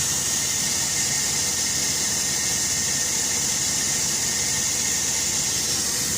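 Foden 6x6 recovery truck's crane hydraulics running with the engine underneath as the crane is stowed, a steady high hiss.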